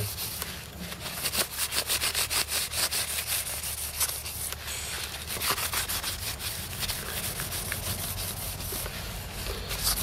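White pad wiped back and forth across a Commodore 64 keyboard circuit board in a run of quick, scratchy rubbing strokes, gently cleaning dirt off the traces and carbon contact pads.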